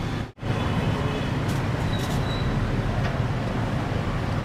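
Street ambience: a steady low rumble of road traffic. The sound drops out for a moment near the start.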